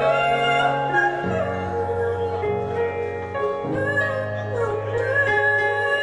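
A woman singing live with a band. Her voice slides and wavers over held low notes that change to a new pitch about every two and a half seconds.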